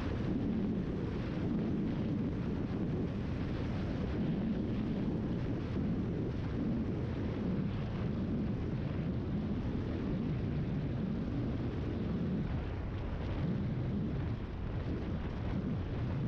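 Steady cabin rumble of a single-engine piston Cessna on final approach: engine and airflow noise, even throughout, with no distinct touchdown thump.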